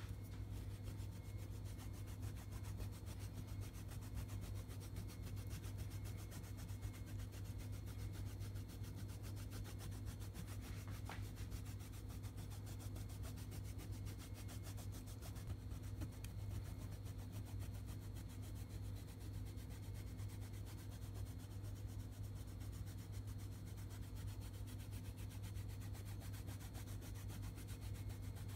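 Hot oil sizzling steadily as panko-breaded food deep-fries: a dense, even crackle over a low hum.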